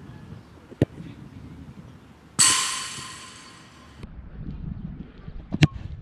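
A football struck hard with a leather Umbro Tocco Pro boot, a sharp thud about a second in; about a second and a half later a loud ringing metallic clang that fades over a second or so as the ball hits metal. Another sharp kick near the end.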